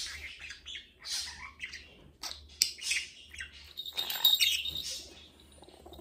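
Green budgerigar chattering and chirping in a run of short, high-pitched bursts, with a couple of sharp clicks a little after two seconds in and the loudest chatter about four seconds in.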